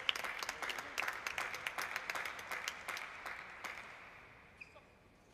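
Spectators clapping. The applause thins and fades out over about four seconds.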